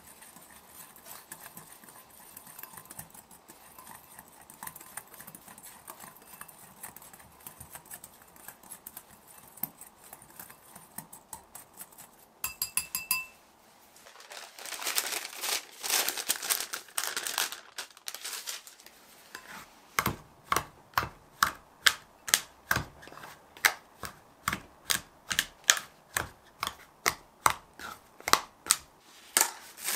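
Kitchen food-prep sounds: faint handling clicks, a stretch of scraping, then a knife cutting on a cutting board in steady strokes about twice a second over the last third.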